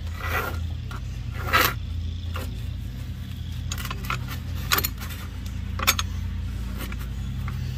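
Nylon rope pulled through metal grommets in a carpet step cover, with the rug handled: scattered short scrapes and rustles, the sharpest about a second and a half in. Under it runs a steady low hum.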